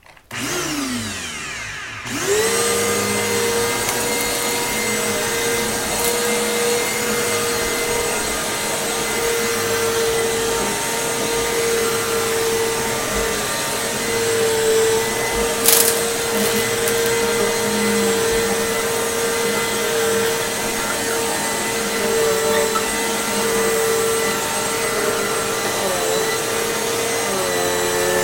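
Hoover Elite Rewind bagless upright vacuum cleaner switched on, its motor spinning up with a rising whine over about two seconds, then running steadily with a high hum. One brief sharp click comes about sixteen seconds in.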